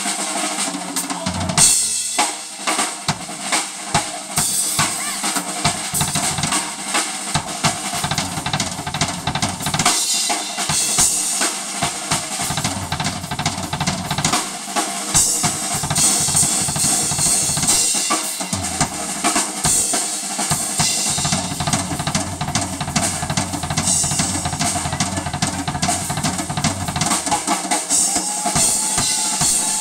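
Live blues band playing, with the drum kit loudest: dense snare and bass drum hits and rolls over electric bass and guitar.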